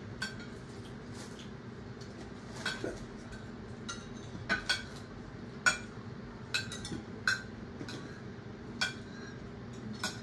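Cutlery and dishes clinking during a meal: a dozen or so short, irregular clicks and clinks over a steady low background.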